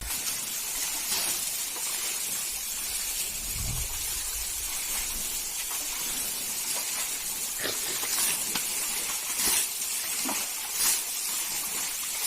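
Rushing stream water: a steady hiss, with a few brief sharp knocks or splashes in the later part.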